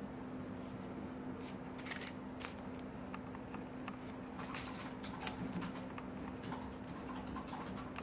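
Paintbrush bristles scratching and dabbing paint onto paper in short, irregular strokes, over a faint steady hum.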